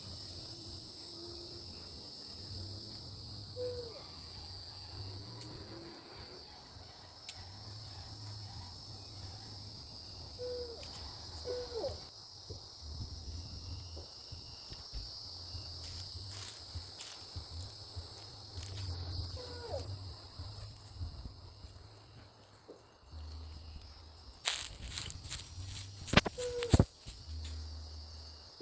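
Outdoor insect chorus of crickets trilling steadily, with an owl giving a few short, low hoots. Near the end comes a cluster of loud sharp clicks and knocks close to the microphone.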